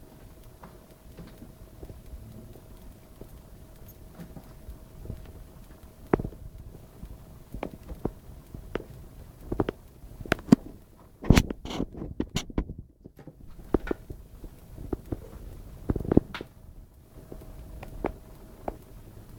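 Irregular knocks and taps, a handful spread over the second half and thickest around the middle, over a low rumble and a faint steady hum.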